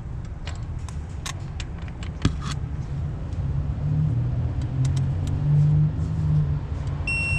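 Metal hand tools clinking sharply several times over a steady low engine hum, which grows louder and shifts in pitch about halfway through. A short electronic beep near the end.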